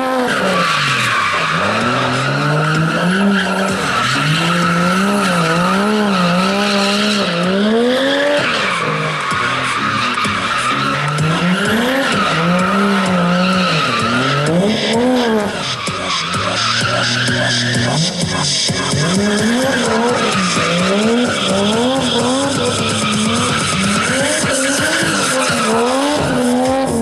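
A car engine revving up and down again and again while its tyres squeal through long slides, the sound of a car being drifted in controlled skids.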